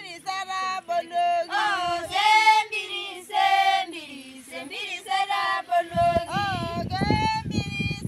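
A group of women singing a traditional Maasai song together in high voices, the melody gliding and swooping between held notes. A low rumbling noise joins in about six seconds in.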